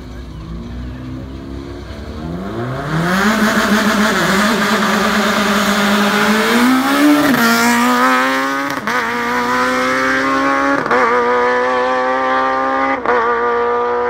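Citroën Saxo S1600 rally car's 1.6-litre four-cylinder engine blipping its revs on the start line, then launching hard about three seconds in. It pulls away flat out with several quick upshifts about two seconds apart, the revs climbing through each gear.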